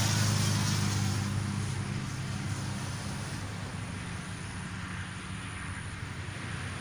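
A steady low engine hum with a hiss over it, like motor traffic, slowly fading.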